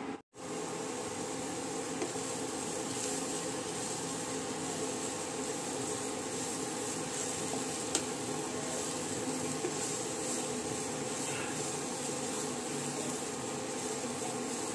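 Sesame seeds dry-roasting in a nonstick pan, a steady sizzle and rustle as a spatula stirs them, with a few light clicks.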